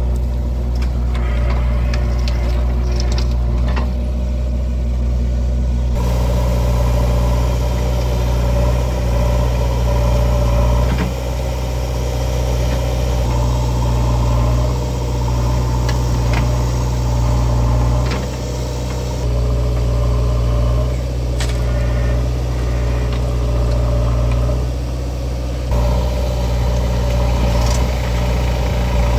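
Heavy diesel engine of earthmoving machinery running steadily at low revs, with a few sharp knocks. The sound changes abruptly about six seconds in.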